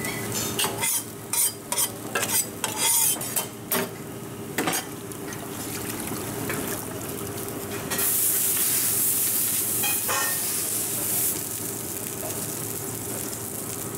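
A metal spatula scraping and clattering on a hot flat steel dosa griddle in quick strokes for the first few seconds. About eight seconds in, a loud sizzling hiss starts and lasts about three seconds, then settles to a steady lower sizzle.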